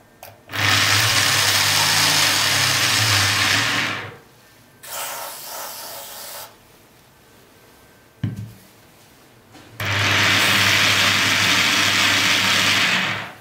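Aerosol can of protective coating spraying in three bursts of hiss: a long loud one of about three and a half seconds, a shorter fainter one, then another long loud one. There is a single click between the second and third bursts.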